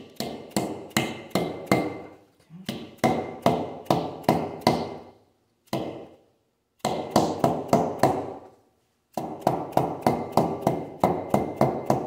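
Mallet lightly tapping a bearing seal into the back of a disc brake rotor hub: quick runs of sharp taps, about four a second, broken by short pauses, with one lone tap in the middle.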